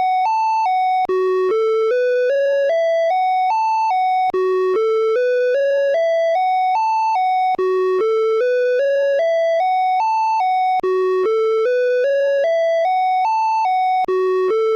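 Åland Islands EAS alarm tone: a loud electronic tone that climbs in short steps through about eight notes, dips once and starts again from the bottom, repeating about every three seconds with a brief break between cycles.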